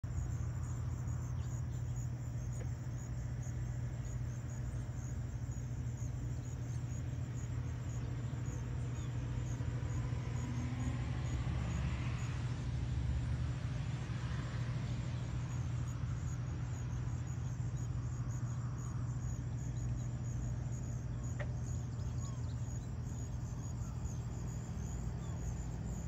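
Steady low hum of a car running and driving, engine and road noise.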